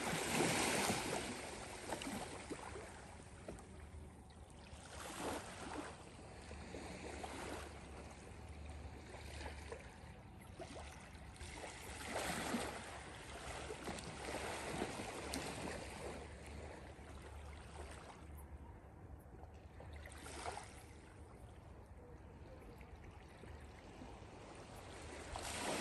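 Small ripples lapping at the water's edge on a calm shore, with a soft wash every few seconds.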